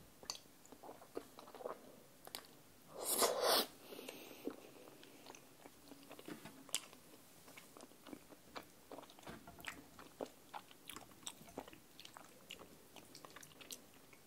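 Close-miked eating sounds of chewy giant rice cake in creamy rose tteokbokki sauce: a loud wet slurp about three seconds in, then steady chewing with many small mouth clicks and smacks.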